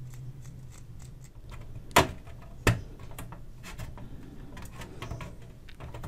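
Hands handling and pressing a glued plastic piece into a radio cabinet corner: faint small clicks and taps, with two sharper clicks about two seconds and just under three seconds in. A low steady hum runs underneath.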